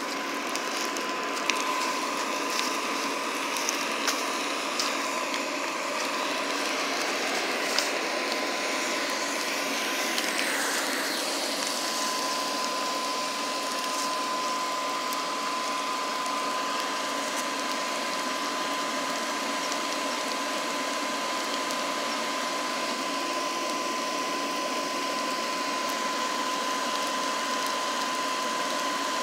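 Forge air blower running steadily, a whir with a constant high whine, forcing air into the burning coal fire. A few sharp pops from the fire in the first eight seconds.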